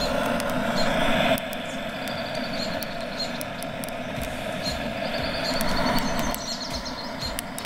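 Handheld butane gas torch burning with a steady rushing hiss, its flame aimed into a stove's firebox to light split firewood. Louder at first, it eases about a second and a half in and swells again near the end.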